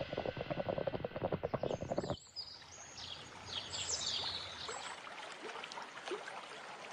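Soup bubbling at a boil in a pot, a dense run of small pops, that cuts off after about two seconds. Quiet outdoor ambience follows, with birds chirping.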